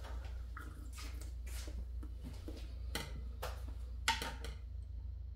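Sipping from a mug and light clicks of a spoon in a meal tray, over a steady low hum. The sharpest clink comes about four seconds in.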